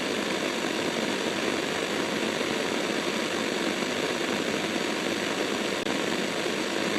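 Steady hiss of static noise with a faint steady tone through it, dropping out briefly about six seconds in.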